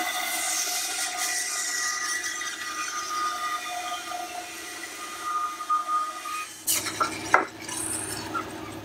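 Grizzly G0555XH 14-inch bandsaw with a resaw blade slicing through a thick block of cherry: a steady cutting noise with a few ringing tones in it. About two-thirds of the way through the cutting sound ends and a few sharp wooden knocks follow, the loudest just after.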